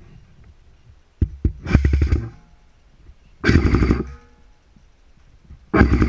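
Airsoft M4 rifle firing: two single clicks about a second in, then three short full-auto bursts of about half a second each, the last starting near the end.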